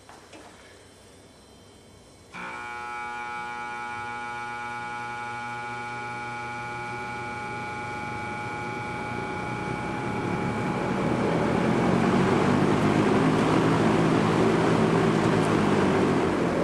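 McGraw Edison Zero box fan switched on about two seconds in: the motor starts with a sudden steady electrical hum, then the rush of air from the blades builds and grows loud as the fan spins up to speed. It spins up fairly quickly and runs nicely on its freshly cleaned and lubricated bearings.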